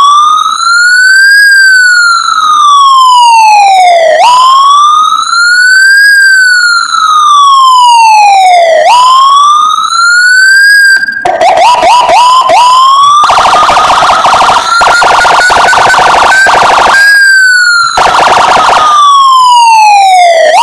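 Electronic siren (CJB 200-watt siren module with a 110 BP sound chip) playing loudly through a horn speaker in a Landun PJR-style wail: slow sweeps up and down, about one every four and a half seconds. Just past halfway it switches to a few quick yelps, then to a harsh, rapidly pulsing buzz, and falling sweeps return near the end.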